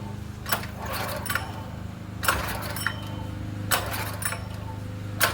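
Irregular sharp metallic clicks and clanks, about seven in five seconds, from hands and tools working on a small engine's parts, over a steady low hum.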